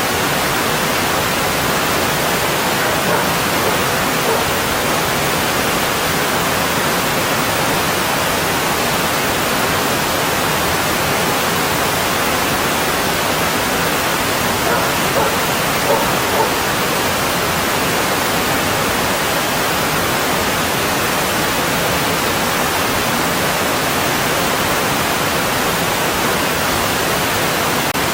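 Mountain stream water rushing steadily over rocks, a loud, even rush.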